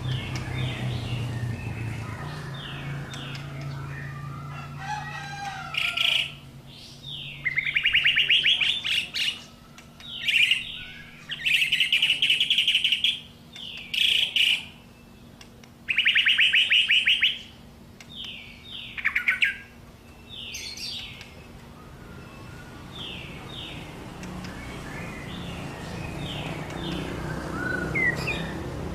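White-rumped shama (murai batu) singing: a run of loud phrases of fast trills and whistled notes, each a second or two long, with the loudest phrases in the middle and softer, sparser notes toward the end.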